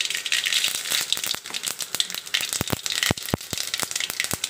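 Mustard seeds spluttering in hot oil in a kadai: a steady sizzle broken by many sharp pops and crackles, which mark the seeds bursting as the tempering begins.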